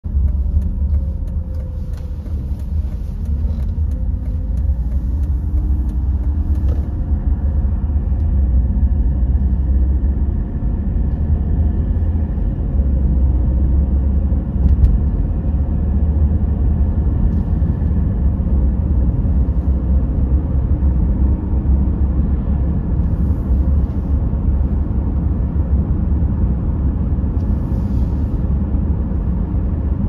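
Car driving on an open road, heard from inside the cabin: a steady low rumble of road and engine noise, with a faint engine hum wavering in pitch during the first few seconds.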